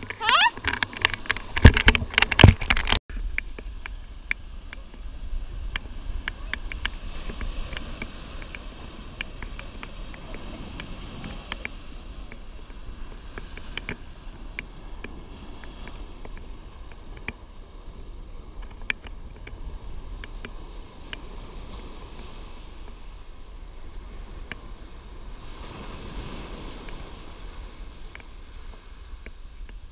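Water splashing and sloshing around the camera in the shallow surf, cut off abruptly about three seconds in. After that, a faint, steady wash of surf and wind on the beach with scattered small clicks.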